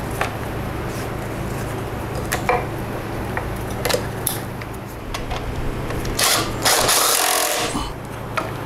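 Hands handling motorcycle wiring and plastic parts: scattered light clicks and knocks, then a louder scraping rustle for about a second and a half near the end as a plastic module is fitted back into place, over a steady low hum.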